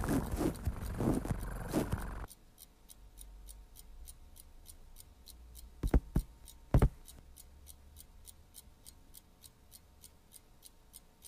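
Cartoon soundtrack: a clock ticking steadily in a hush, about four ticks a second, after a busier first two seconds. Two short thumps break in about six and seven seconds in.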